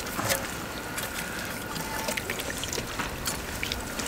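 Makgeolli being poured from a bottle: a steady trickling, with small clicks and taps throughout.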